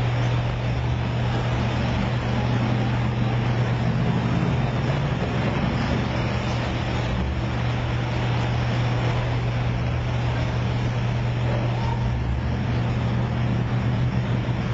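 Diesel engines of landing craft running steadily, a constant low drone, over the rush of propeller-churned water in the flooded well deck.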